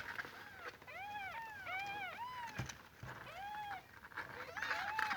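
Kitten mewing over and over, about six short high-pitched mews that each rise and fall in pitch, with a brief knock about halfway through.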